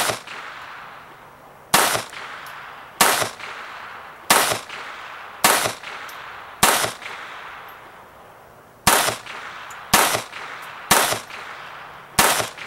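Ten single shots from a SIG Sauer Mosquito .22 LR semi-automatic pistol, about a second or so apart, with a pause of about two seconds after the sixth. Each sharp crack trails off in an echo. The pistol cycles the Winchester 36-grain copper-plated hollow points without a hitch.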